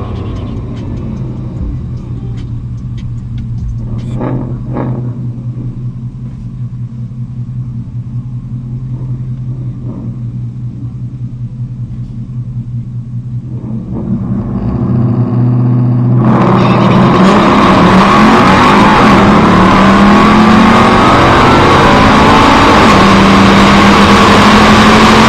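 Boosted Ford Mustang GT 5.0 V8 sitting at a rumbling idle. Its revs rise about 14 s in, and about 16 s in it launches into a loud, sustained full-throttle run down the strip.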